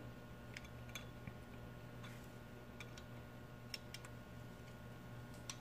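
A handful of faint, irregular metal clicks from wrenches working the lock nut on an adjustable pushrod of a Harley-Davidson Twin Cam engine, over a low steady hum.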